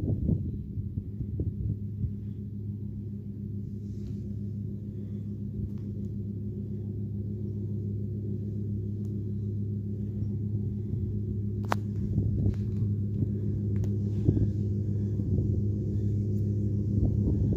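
Fendt 409 Vario tractor running steadily while mowing with a Pöttinger disc mower: a low, even engine drone that grows gradually louder toward the end.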